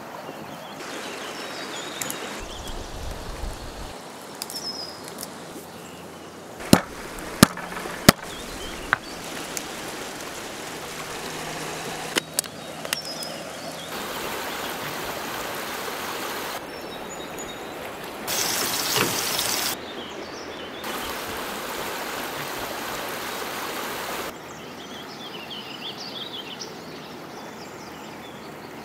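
Outdoor ambience cut together from several takes: a steady hiss with birds chirping, and three sharp knocks about seven to eight seconds in. The hiss changes level abruptly at each cut.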